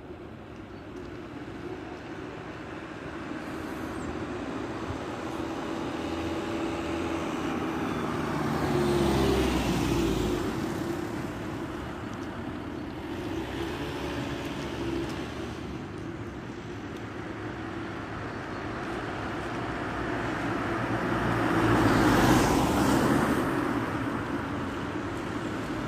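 Street traffic: vehicles passing, with a louder pass about nine seconds in and another about twenty-two seconds in.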